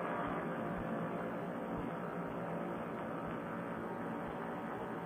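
Paramotor trike's engine and propeller running steadily in flight, an even drone that holds constant throughout.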